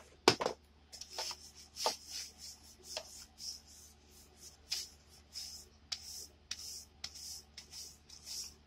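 A flat abrasive block scraping back and forth along the metal rails of a plastic-roadbed model track section, in short strokes about two to three a second. A sharp knock near the start is the loudest sound.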